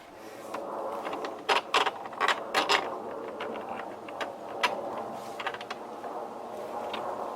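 Metal seat hardware being handled and fitted: a quick run of clicks and knocks in the first few seconds, then a few single clicks, over a steady hum.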